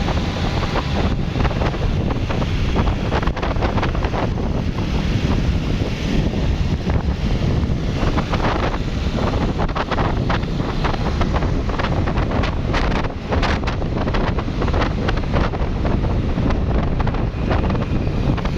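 Wind buffeting the microphone: a loud, steady rumble that covers the road sounds beneath it.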